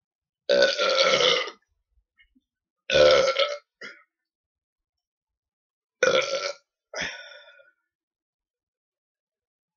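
A man belching loudly four times in about seven seconds, gas from a large amount of carbonated soda. The first belch lasts about a second, and the last trails off.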